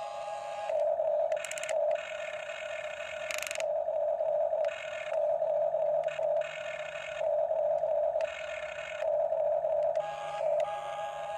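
Huina remote-control toy excavator running: a steady pulsing electronic tone from the toy, with the whine of its small electric gear motors coming in repeated bursts of about a second as the boom and bucket move.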